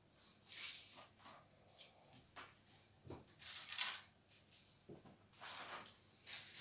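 Faint rustling and handling noises of leaves, stems and moss being pushed into a flower arrangement, in short scattered bursts with a few small clicks; the loudest rustle comes a little past the middle.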